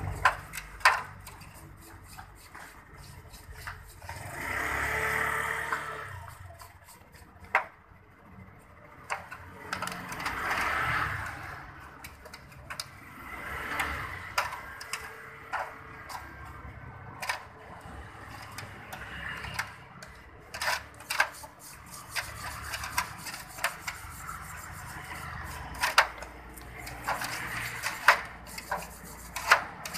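A brush scrubbing a Honda Spacy 110 cylinder head in a metal tray of dirty liquid, with frequent sharp clicks and clinks of the metal part knocking against the tray, and liquid poured over the part from a bottle.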